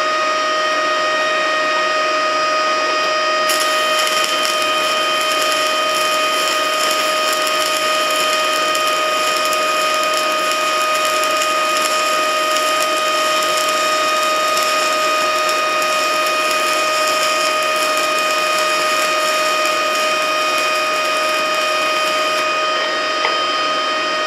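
Stick-welding arc from a 6013 electrode at 40 amps crackling steadily as a zigzag weave bead is run, starting about three and a half seconds in and cutting off a couple of seconds before the end. A steady high whine from the inverter welding machine runs underneath throughout.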